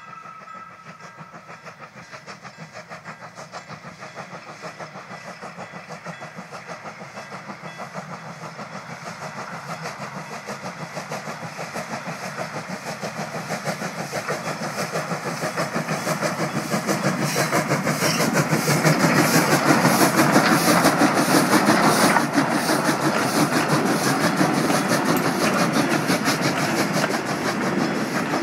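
Steam locomotive hauling passenger carriages, its exhaust beating in a fast, even rhythm. It grows steadily louder as it draws near over the first twenty seconds or so, then stays loud as it passes.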